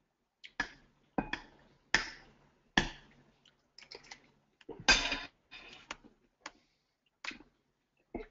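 Typing on a computer keyboard, picked up by an open microphone: about a dozen sharp clicks and knocks at irregular intervals, the loudest about five seconds in.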